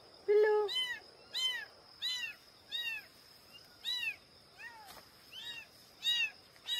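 Several tiny kittens left without their mother mewing: short, high, thin cries that rise and fall, following one another about every half second to a second.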